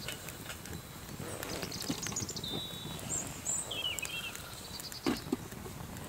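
Wood crackling and popping as it burns in a folding steel twig stove, with small birds chirping. About five seconds in there is a single louder metal knock as a pot is set on top of the stove.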